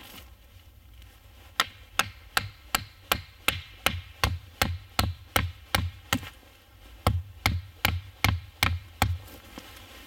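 Steady hammering, about two and a half blows a second, driving wooden stakes into the forest ground. Each blow is a sharp knock with a dull thud, with a short pause halfway through.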